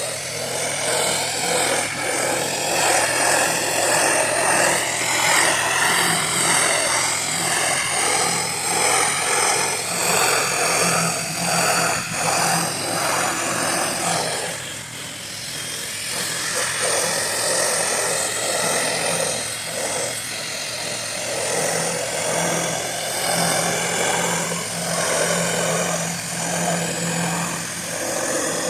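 Pressure washer running, with the water jet spraying against a shed's siding and a low steady hum from the machine underneath. The spray noise shifts as the wand sweeps across the wall and eases briefly about halfway through.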